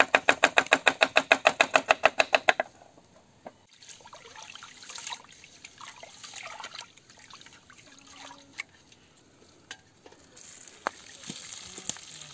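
A knife chopping onions fast on a wooden board laid on a steel plate, about eight sharp, ringing strokes a second, stopping about two and a half seconds in. Then rice being swished by hand in water in a steel pot, and near the end the milky rice-washing water poured out of the pot onto the ground in a steady splash.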